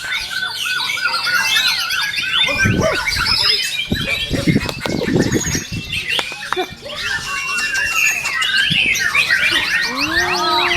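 White-rumped shama (murai batu) singing a fast, varied run of short whistles and chirps.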